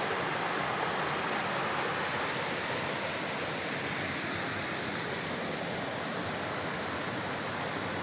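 River water rushing steadily over rock ledges in a series of small cascades.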